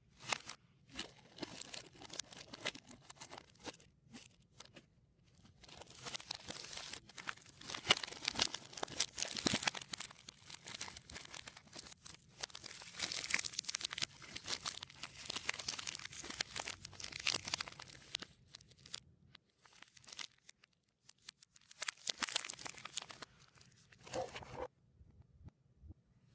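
Soft snack and candy-bar wrappers crinkling and tearing, played in reverse. It comes in bursts with short pauses, busiest in the middle, and stops shortly before the end.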